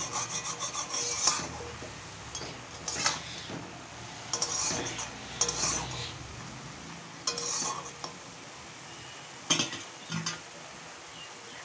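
Metal spatula scraping and stirring red amaranth greens in a metal kadai: a quick run of strokes in the first second, then single scrapes every second or two, with a soft sizzle of the greens cooking in their own released water underneath.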